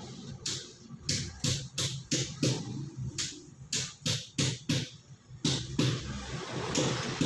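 Background music with an electronic drum beat: sharp regular hits over a steady bass line.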